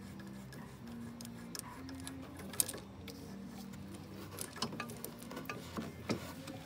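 Scattered metal clicks and taps of hand tools working on hydraulic hose fittings, with a sharp click about two and a half seconds in and another near the end.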